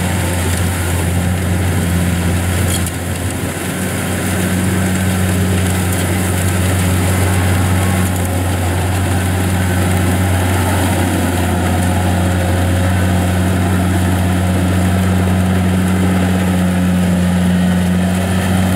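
Kubota DC70 Plus rice combine harvester, its Kubota V2403 four-cylinder diesel running steadily under load with a deep, even hum as it cuts and threshes lodged rice.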